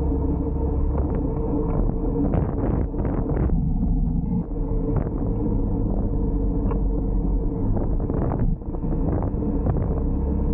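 Honda ADV350 scooter's single-cylinder engine running at low road speed, heard from the rider's seat with a steady low rumble, dotted with short knocks.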